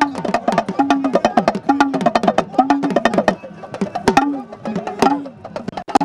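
Sabar drums played fast: many sharp strokes crowd together, over a recurring pitched tone that swoops downward about once a second.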